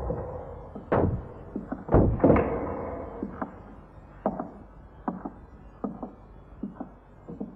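An irregular series of sharp, reverberant thuds and knocks. The loudest fall about one and two seconds in, and fainter ones follow at uneven intervals, dying away.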